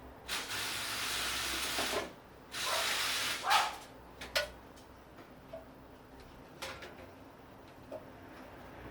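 Two bursts of hissing gas or spray, the first a little under two seconds long, the second about one second, followed by a few light clicks and taps.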